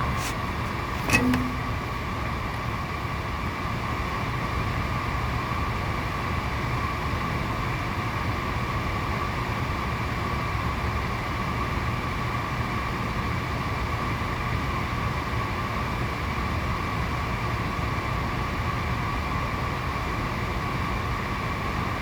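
Rear convection blower fan of a 6000CLX-IFT-S heater running steadily, a constant whine over an even rush of air. A single short knock about a second in.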